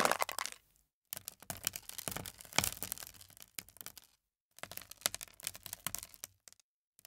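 Foley recording of gravel and small stones being stirred and crunched by hand in a shallow perforated-bottom tray: a dense crackling clatter of many small hard pieces. It comes in three separate takes divided by short, dead-silent gaps.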